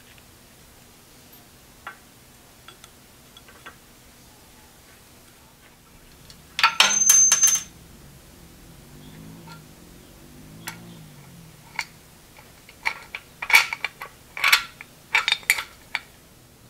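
Metal hardware clinking as a steel bracket, bolts and washers are handled and fitted against a cast-iron milling machine column: a clatter with a brief ringing note about seven seconds in, then a run of sharp clinks near the end.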